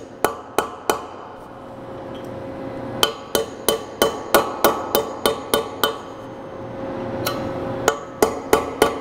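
Small hammer tapping 6 mm dowel pins down through a metal tool plate into a rotary indexing table, driving them flush. Sharp metallic taps come in runs of about three a second, with short pauses between runs.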